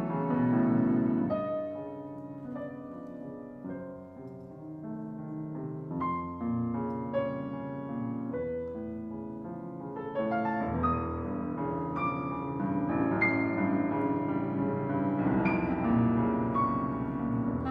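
Piano playing in a contemporary chamber piano concerto, with many struck notes ringing on. It grows louder about ten seconds in.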